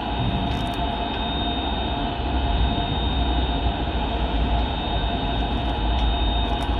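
Steady rumbling mechanical noise with a faint high, steady whine running through it.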